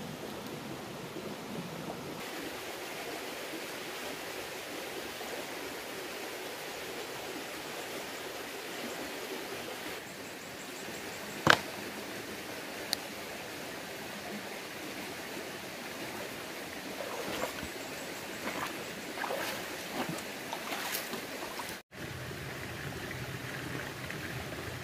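Shallow rocky stream flowing steadily, a constant rush of water. About halfway through comes one sharp knock, a smaller click soon after, and several faint clicks and knocks near the end.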